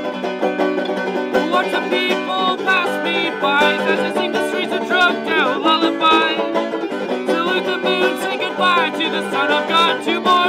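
Banjo being picked, an unbroken instrumental passage of quick plucked notes.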